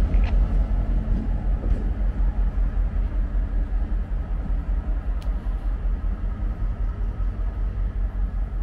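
Diesel locomotive engine running with a deep, steady throb as the locomotive pulls away, fading slightly.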